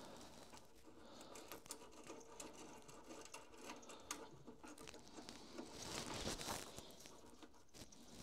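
Faint small clicks and rustling of hands handling a washer, lock washer and nut on a gauge's terminal stud, with a louder scuff about six seconds in.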